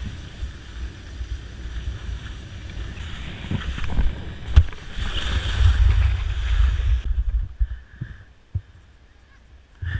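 Skis hissing and scraping over soft spring snow, with wind buffeting the action camera's microphone as a low rumble. The hiss builds, is broken by a couple of sharp knocks about four seconds in, then cuts off abruptly about seven seconds in, leaving a fainter rumble.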